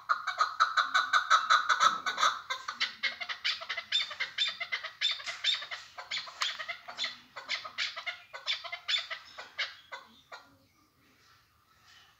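Male chukar partridge calling from its covered cage: a fast run of short clucking notes, several a second, loudest in the first two seconds, then slowing and trailing off about ten seconds in.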